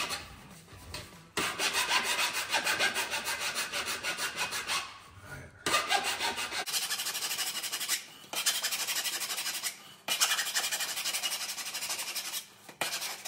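Half-round file rasping back and forth over the cut end of a 110 mm plastic soil pipe, deburring and chamfering the edge. The filing comes in four bouts of a few seconds each, with short breaks between them.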